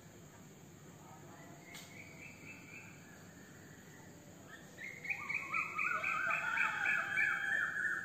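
A bird calling in a series of short repeated notes, faint about two seconds in and loud over the last three seconds, over steady background cricket chirring.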